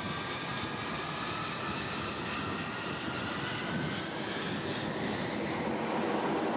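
Jet engine of a carrier fighter running on the catapult, a high whine that rises slowly in pitch over steady jet noise, growing louder near the end as it spools up for launch.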